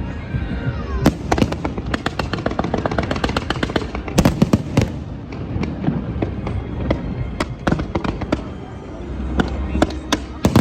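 Fireworks going off in a rapid, irregular string of sharp cracks and bangs, thickest about four to five seconds in, over a steady low background rumble.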